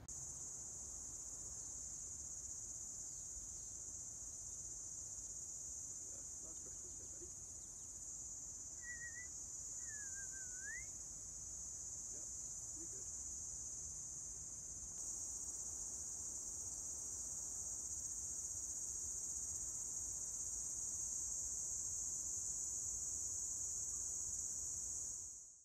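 Steady, high-pitched drone of insects chirring in the scrub, growing a little louder past the middle.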